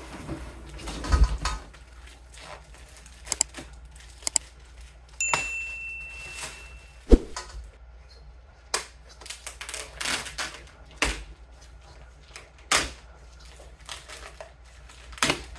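Scattered clicks, knocks and rattles of metal box-spring parts and their packaging being handled. About five seconds in, one clink rings on briefly.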